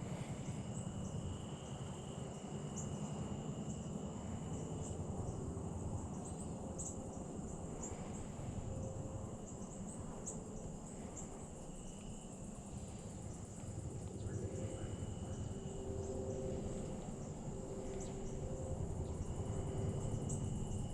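Insects chirring in a steady high-pitched drone, with a second, lower call that comes and goes every few seconds, over a low rumble.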